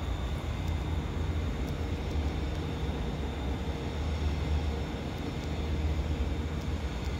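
A steady low hum with a faint, steady high-pitched whine above it.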